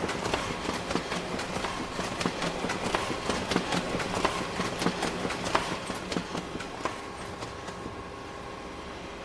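Photocopier running: a steady motor hum with rapid, irregular clicking and clatter from its mechanism. The clicking stops about seven seconds in, leaving the hum alone.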